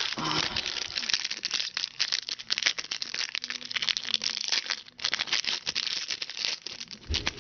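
Foil trading-card pack wrapper crinkling as it is torn open and handled: a dense crackle with a short pause about five seconds in.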